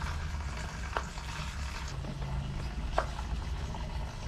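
Two light knocks about two seconds apart during kitchen prep work, over a steady low background hum.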